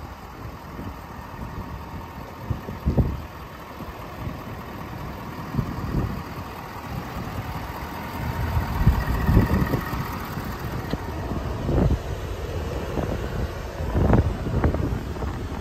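Wind rumbling and buffeting on a handheld microphone, with irregular gusts and thumps, louder around the middle and near the end.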